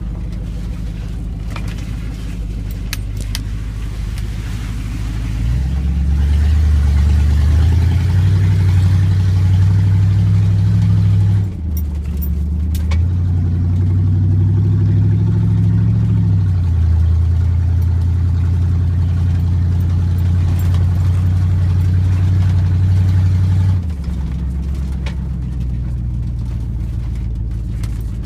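Chevy pickup truck engine heard from inside the cab while driving: it runs at a low, steady pitch, then picks up about five seconds in. The pitch climbs and drops back twice as the truck shifts up, holds steady, and falls back about four seconds before the end as the throttle is let off.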